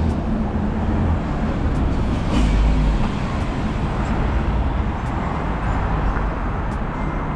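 Heavy city traffic passing close by: a bus and then a truck drive past with engine rumble and tyre noise, the low rumble loudest about two and a half seconds in.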